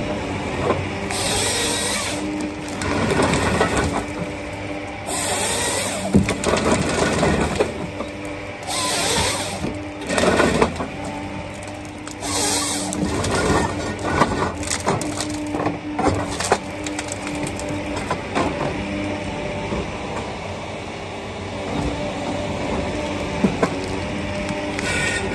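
John Deere 953MH tracked harvester running under load as its Waratah 622B head feeds and delimbs a tree stem, with a steady diesel and hydraulic hum, clattering feed rollers and snapping branches. About four short hissing bursts are the head's saw bucking the stem into logs.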